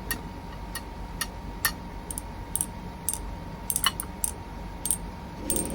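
A run of light, sharp clicks at an uneven pace, roughly one or two a second, over a steady thin high tone and a low background hum.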